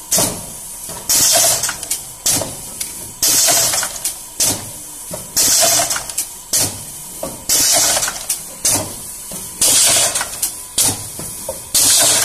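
Holis MS 500 automatic blind-slat machine running its cycle: a loud hiss of venting compressed air about once a second, alternating longer and shorter bursts, each starting with a sharp mechanical clack.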